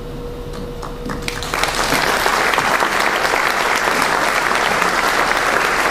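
Audience applauding in a hall, starting about a second and a half in and swelling to a full, steady clapping.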